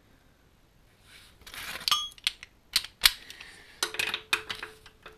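Metal clinks and sharp clicks of a tool and metal parts being handled at a Land Rover TD5 engine's oil filter housing while the oil filter is taken off. They start about a second in and come in an uneven run, with a brief ringing tone near the end.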